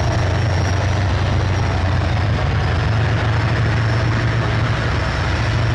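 T-72 tank driving cross-country under power, its 780 hp multi-fuel engine and running gear making a steady, loud, low rumble.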